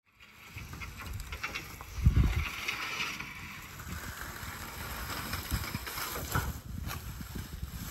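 Crunching and rustling of footsteps through dry leaves and brush over old track, with uneven low rumbling and a heavier dull thump about two seconds in.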